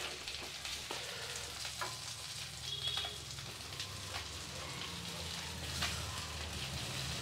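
Fish frying in a pan of hot oil: a steady sizzle with scattered crackles and pops.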